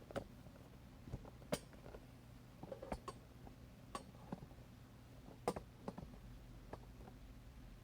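Scattered light clicks and knocks of hands handling objects at close range, about a dozen in all, over a faint steady low hum.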